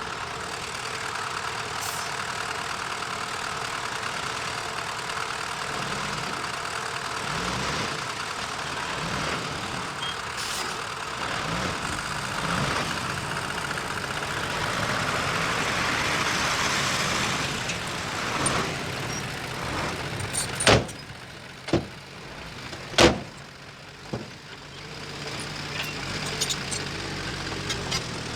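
Diesel engine of earthmoving machinery running steadily, easing off about two-thirds of the way through. Three sharp, loud knocks follow about a second apart.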